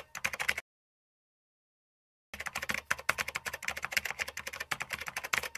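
Quiet, rapid clicking of keyboard typing: a short run that breaks off into dead silence for under two seconds, then a longer run of keystrokes.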